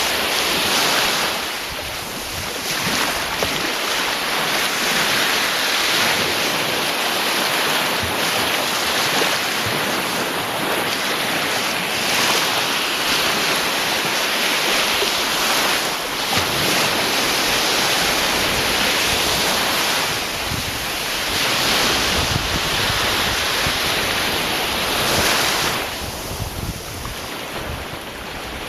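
Sea surf: waves washing and breaking in a continuous rush that swells and eases every few seconds.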